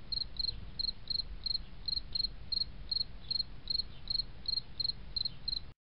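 Evenly spaced high chirps, about three a second, typical of a chirping insect such as a cricket, over a low rumble. The sound cuts off abruptly near the end.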